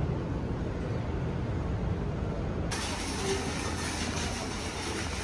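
Low rumble of an underground railway station, then an abrupt switch a little past halfway to the steady noise of city street traffic.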